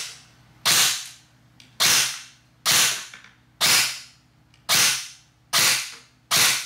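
ICS M4-style airsoft rifle firing single BBs through a chronograph: seven sharp cracks about one a second, each fading quickly.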